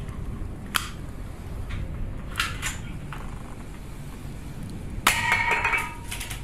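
Sharp mechanical clicks from a restored spring toy pistol being worked in the hand: one click under a second in, two close together about halfway, then a quick cluster of clicks with a brief metallic ring about five seconds in.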